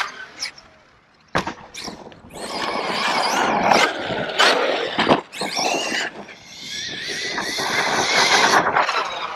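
Traxxas Sledge RC monster truck's brushless electric motor whining, rising and falling in pitch with bursts of throttle. Several sharp knocks come as the truck lands off sand jumps, mostly in the first two seconds and again about five seconds in.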